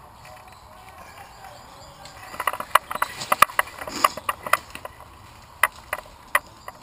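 Airsoft gunfire in woodland: a run of sharp, irregular cracks a little over two seconds in, then a few single shots spaced about half a second apart.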